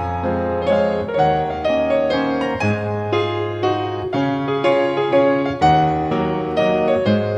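Piano music, a gentle melody of repeated notes over sustained low bass notes.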